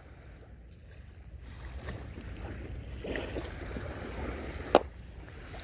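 Wind rumbling on the microphone over a soft wash of water from the shore, with one sharp click about three-quarters of the way through.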